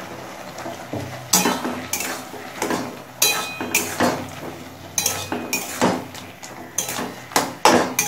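Metal spatula scraping and knocking against a metal kadai while stirring thick chutney, in irregular strokes about one or two a second. One stroke about three seconds in rings briefly.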